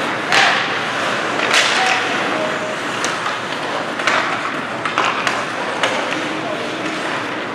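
Ice hockey game sounds: skates scraping the ice under indistinct shouting voices, with sharp clacks and knocks of sticks and puck at irregular intervals.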